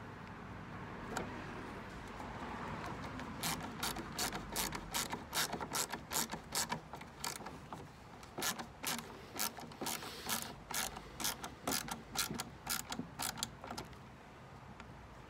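Ratcheting hand screwdriver driving a screw into a wooden record crate, its ratchet clicking about three times a second on the return strokes. The clicks start a few seconds in and stop about a second before the end.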